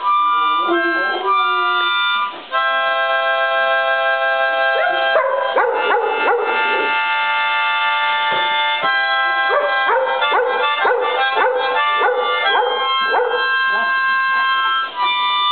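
Harmonica playing steady held chords while a Shepherd-Chow mix dog howls along with it. The dog's howls come thick and fast through the middle, as a run of short rising and falling yowls over the chords.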